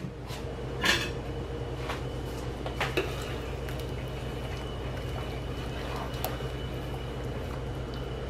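Soup being stirred with a ladle in a stainless steel pot: liquid sloshing, with a few light knocks of the ladle against the pot, over a steady low hum.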